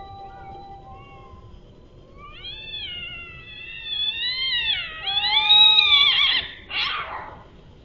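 Cats caterwauling in a fight standoff: long, wavering yowls that climb in pitch and loudness, then a short harsh noisy outburst near the end.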